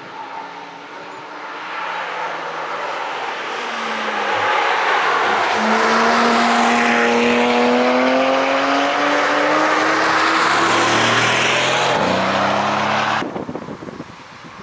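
A car driven fast approaching and passing close by: its engine note climbs steadily for several seconds over loud tyre and wind noise, drops in pitch as it goes past, and falls away sharply near the end.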